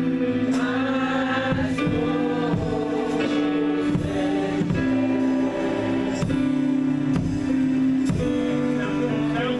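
Gospel music: voices singing over sustained chords, with regular drum hits.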